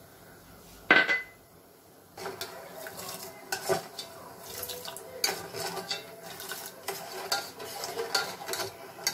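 A metal spoon stirring sugar and water in a stainless steel saucepan to make syrup, scraping and clinking irregularly against the pan's bottom and sides from about two seconds in. Before that, about a second in, comes one sharp, ringing metallic clink, the loudest sound here.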